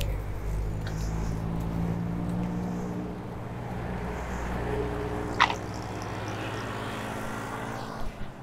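A motor vehicle's engine running close by in street traffic: a steady low hum, with one brief sharp chirp about five and a half seconds in.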